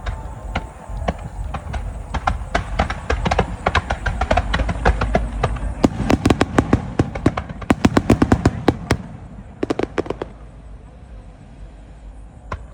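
Star mine fireworks barrage: rapid sharp cracks and bangs over a low rumble, densest in the middle and thinning out near the end.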